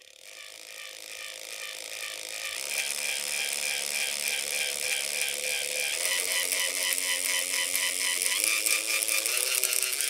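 LEGO 47154 clear 9V geared motor running with a regular clicking over its whine. The whine steps up in pitch about halfway through and twice more near the end as the speed is turned up. The clicking comes from a cracked plastic pinion gear on the motor that engages unevenly.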